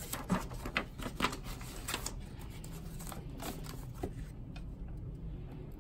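Paper pages of a printed form being flipped over and handled on a table: crisp rustles and light taps, busiest in the first two seconds, a few more about three to four seconds in, then quieter.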